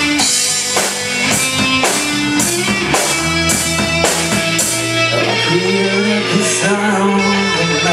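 Rock music with electric guitar and drums, the beat hitting about twice a second. About five seconds in the drum hits stop and held guitar notes carry on.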